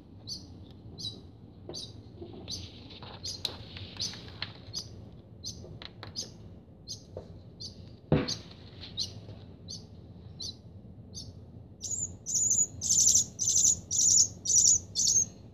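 Four-day-old barn swallow nestling chirping, a steady string of short high peeps about two a second that grows much louder and quicker near the end, typical of a hungry nestling begging for food. A sharp knock about halfway through.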